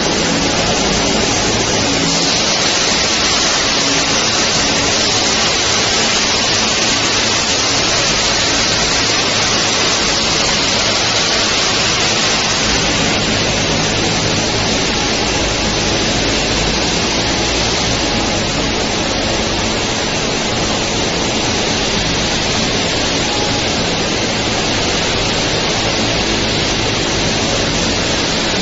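A ceiling-tile roller coating line running: a loud, steady rushing noise from its motors and conveyors, with a faint low hum underneath.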